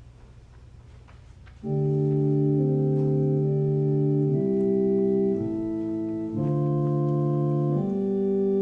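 Organ playing slow, held chords, coming in after a quiet second or two and moving to a new chord every one to two seconds.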